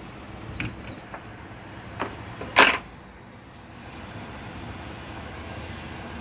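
A few sharp clicks from tools handled at the board, the loudest about two and a half seconds in, then the steady hiss of a hot-air rework station blowing to desolder an IC from a laptop motherboard.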